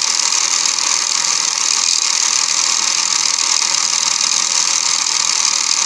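Small 5-volt brushed DC drive motor and gearbox of a toy RC car running unloaded, wheels spinning free: a steady, high whirring.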